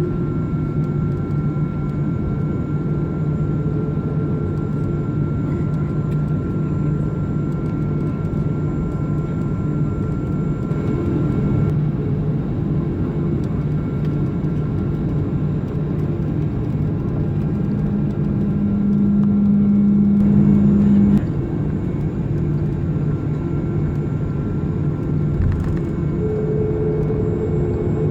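Cabin noise inside a Boeing 737-400 airliner: a steady drone from its CFM56 jet engines and cabin air, with a few constant tones. About two-thirds of the way through, a louder low hum swells for about three seconds, then cuts off suddenly.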